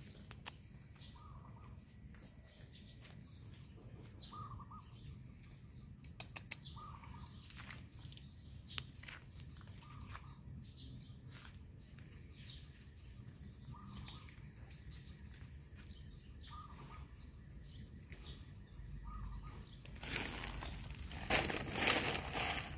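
A bird calls a short note every two to three seconds over faint background noise, with scattered clicks. Near the end comes a loud rustling burst lasting about two seconds.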